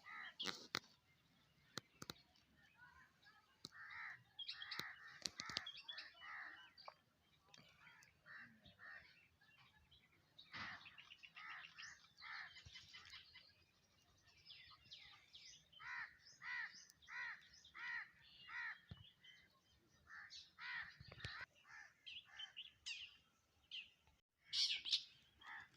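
Several wild birds chirping and calling over one another. There is a fast trill about ten seconds in, and a few seconds later a run of evenly spaced repeated notes, about two a second.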